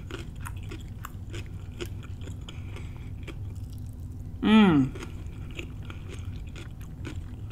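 Close-miked eating and chewing of a shrimp and vegetable stir fry, with many small wet mouth and spoon clicks. About four and a half seconds in comes a short falling "mmm" of enjoyment.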